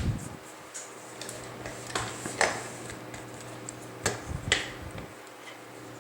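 Sharp metallic clicks and taps as lock picks and a steel padlock are handled, in two pairs about two seconds apart.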